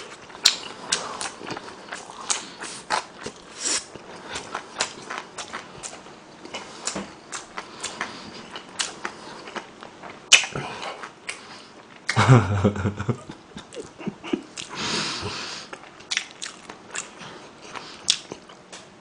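Close-miked chewing of a crisp pan-fried dumpling: many small wet crunches and mouth clicks, with two louder, fuller stretches about 12 and 15 seconds in.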